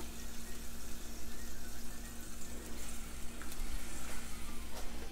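Reduced white wine and garlic simmering with a soft, steady sizzle in a stainless skillet as thick marinara sauce is poured in, with light scrapes of a spatula in the pan near the end.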